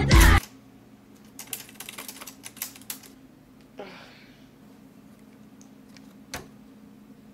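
Typewriter keys struck in a quick run of clicks lasting about a second and a half, with a brief soft hiss a moment later and one more click near the end, over a faint steady hum. Music cuts off just after the start.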